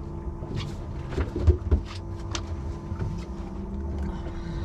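Twin 150 hp outboard motors idling with a steady low hum, with scattered light knocks and clicks of tackle and gear on the boat.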